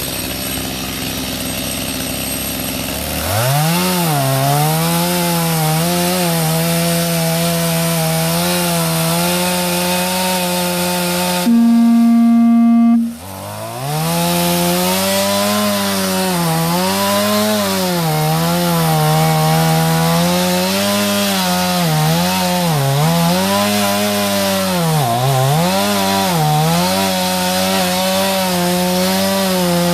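Small two-stroke chainsaw idling, then revving to full throttle about three seconds in and cutting through the last holding wood of a tree being felled. About twelve seconds in it briefly runs at a higher, steady pitch and then drops off for a moment. After that its pitch sags and recovers again and again as the chain bogs in the cut, the saw labouring because it is too small for this trunk.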